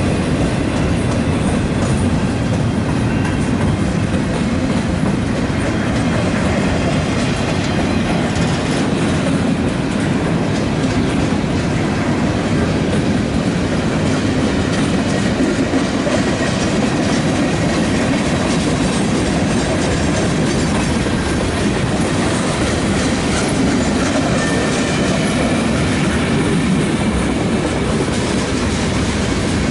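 Freight train rolling steadily past close by: a continuous rumble of wheels with a clickety-clack over the rail joints as tank cars and other freight cars go by.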